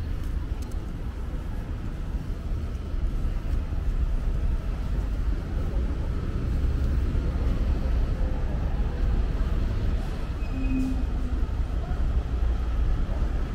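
City street traffic: a steady low rumble of buses, trucks and cars passing on a busy road, with a brief tone about ten seconds in.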